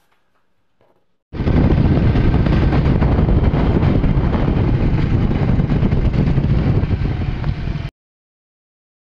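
Wind rushing over the microphone with road and engine noise from a moving motorcycle. It starts suddenly about a second in and cuts off abruptly near the end.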